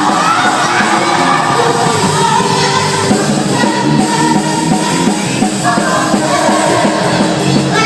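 Gospel song performed by a lead singer over a band with a steady beat, the sung line held and sliding in pitch.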